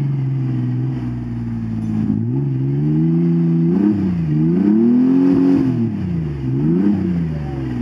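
Ford Explorer engine running steadily, then revving up and down about three times from about two seconds in.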